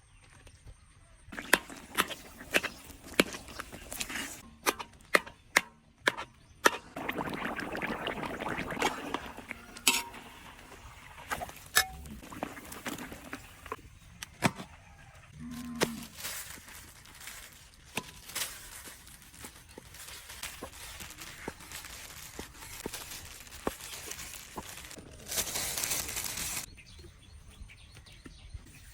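Food preparation sounds: a quick run of sharp chopping knocks, then bouts of scraping or rustling with scattered clinks and ticks.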